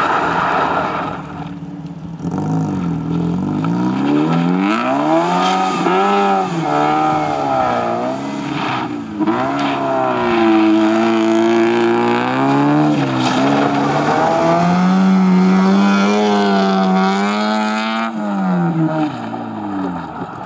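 Fiat Cinquecento rally car's engine revving hard as it slides around a hairpin on loose gravel. The pitch climbs and falls several times with throttle and gear changes, over the crunch and spray of gravel from the tyres.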